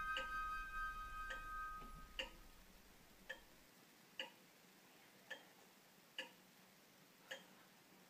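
Sustained music tones fading out over the first two seconds, then quiet, sharp ticks about once a second, alternately slightly longer and shorter apart in a tick-tock beat.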